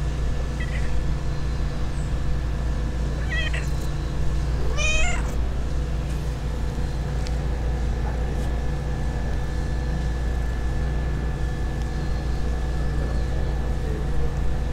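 Dilute calico cat meowing a few times: short calls about a second in and around three and a half seconds, then a longer wavering meow around five seconds. A steady low hum runs underneath.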